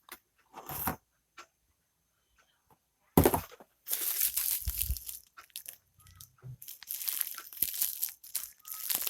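Packaging being handled: plastic wrap and cardboard crinkling and rustling in irregular bursts, starting in earnest about three seconds in after a brief rustle near the start.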